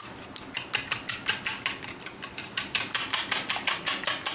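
Wire whisk beating eggs in a plastic bowl: a fast, even clicking of the wires against the bowl, about five strokes a second.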